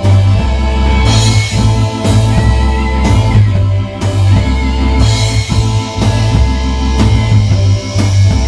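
Rock band playing loud, with drum kit, bass and guitar on a steady beat.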